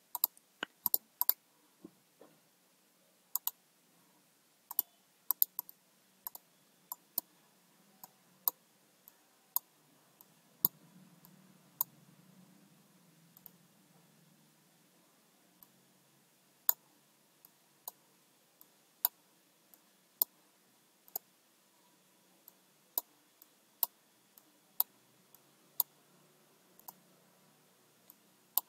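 Computer mouse button clicking: sharp single clicks at an irregular pace, some in quick double-click pairs.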